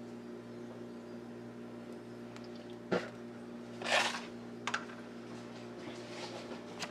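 Small clicks and handling noises at a matchbox as the match used to light the birthday candles is put away, with one short whoosh about four seconds in, over a steady low electrical hum.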